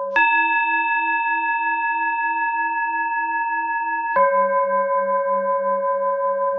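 Tibetan singing bowl tones: a higher-pitched bowl strike rings steadily for about four seconds, the cue to breathe in, then cuts off suddenly as a lower-pitched bowl strike takes over about four seconds in, the cue to breathe out, its deepest tone wobbling slowly.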